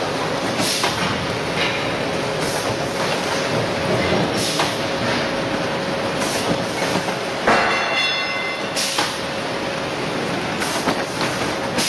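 Core veneer composer running: steady clattering machine noise with a short hiss-like burst about every two seconds. About two-thirds of the way in, a brief squeal with several tones sounds over it.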